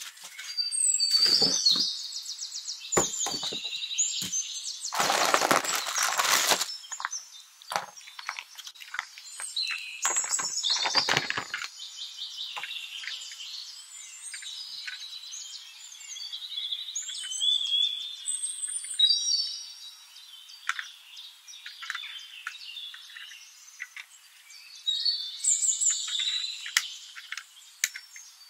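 Clear plastic packaging crinkling and rustling as it is handled, in irregular patches, with a louder burst of rustling about five seconds in.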